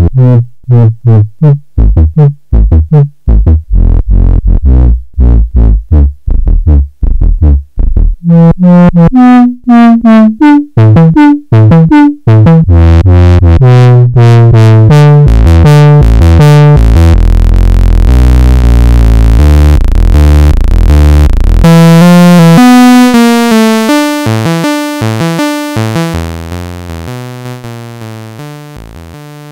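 A sequenced sawtooth synth line played through a Studio Electronics 4075 resonant lowpass filter, its cutoff and resonance turned by hand. The short, dull low notes open into brighter, ringing resonant tones about eight seconds in, and the line fades down near the end.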